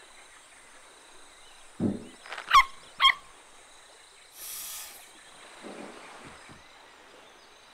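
Cartoon sound effects: a soft low thud about two seconds in, then two short high animal calls with wavering pitch, and about half a second of hiss a little later.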